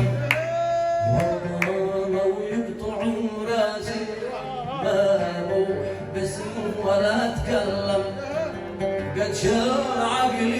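Yemeni song music: plucked-string instrumental playing between sung lines, with a few drum strokes.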